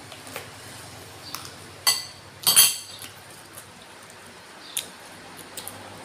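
A metal spoon clinking against a dish several times. The two loudest clinks come close together about two seconds in, each with a short ring.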